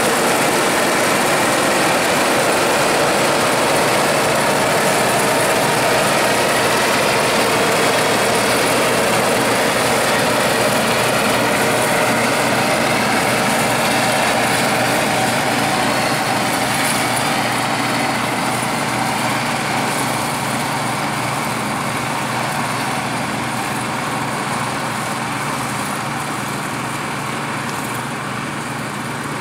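Bizon Rekord Z058 combine harvester running under load while harvesting oats: a steady mechanical din from the engine and the threshing machinery. It slowly grows quieter over the second half as the combine moves away.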